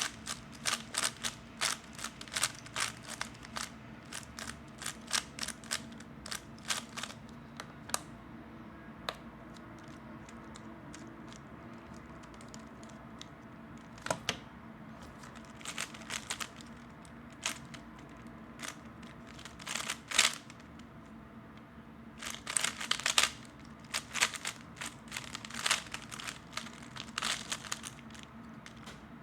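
3x3 Rubik's speed cube being turned fast: quick runs of plastic clicking and clacking, dense for the first several seconds, sparse for a few seconds in the middle, then coming back in short flurries.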